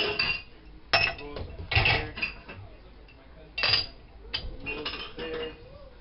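Dishes being unloaded from a dishwasher rack: ceramic bowls and cups clinking against each other and the wire rack, in about half a dozen separate clatters.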